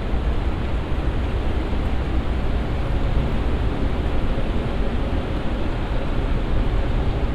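Steady city street ambience: an even rumble and hiss of traffic and surroundings, with no single sound standing out.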